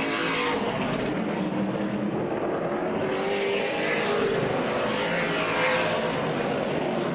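Late model stock cars' V8 engines running at racing speed on a short oval, a steady drone that swells and fades in pitch as cars go by.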